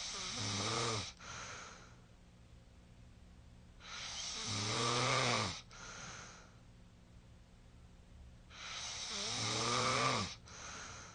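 A sleeping person snoring: three loud snores about four and a half seconds apart. Each is a long noisy breath with a low buzzing vibration that wavers in pitch toward its end and cuts off suddenly, followed by a shorter, softer breath.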